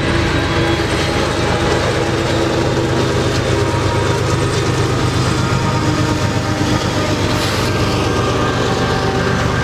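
Diesel freight train of hopper cars passing close by, with mid-train diesel locomotives going past. Their engines drone steadily under the continuous noise of the wheels running on the rails.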